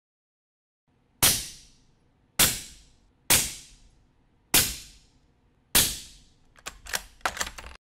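Five suppressed subsonic 300 Blackout shots (200 gr) through an AB Raptor 7.62 six-stack suppressor on a 2-inch reflex mount, each a short sharp report with a quick fading tail, metering about 115.6 to 118.7 dB peak at mid-gun. A quick run of smaller clicks and knocks follows near the end, then the sound cuts off suddenly.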